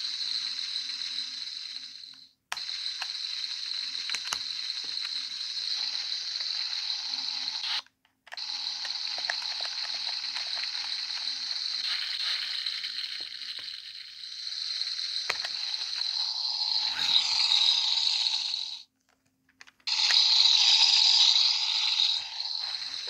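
Play-Doh toy stovetop playing its electronic sizzling sound effect through its small speaker as the burners are pressed: a steady hiss that stops and starts again three times and is louder near the end.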